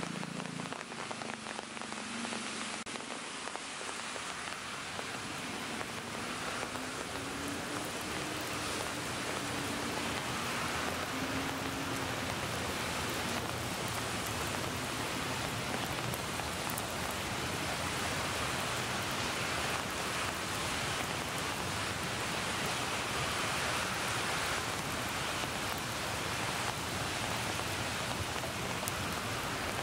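Steady rain falling, an even hiss of drops with no breaks, real recorded rain mixed with a rain sound effect. A faint low wavering drone sits under it for about the first dozen seconds.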